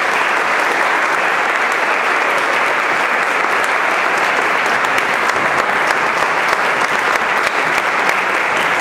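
Audience applauding: dense, steady clapping that holds at one level throughout.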